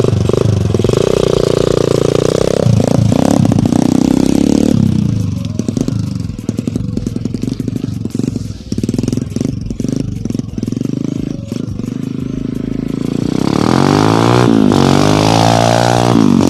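Kawasaki KLX single-cylinder four-stroke dirt bike engine revving as it pulls away across grass, fading as the bike rides off. About thirteen seconds in it comes back louder, the revs rising and falling repeatedly as the thin street tyre slips on the grass under throttle.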